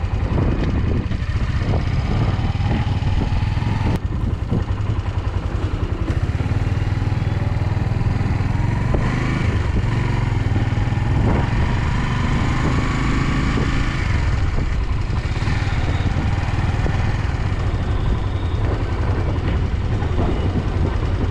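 Suzuki Volty 250's single-cylinder engine running steadily at a constant speed, with no revving.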